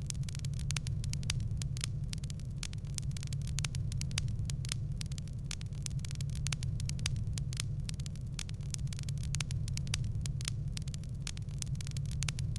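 A wood fire in a fireplace crackling: many irregular sharp pops and snaps over a steady low rumble from the burning fire.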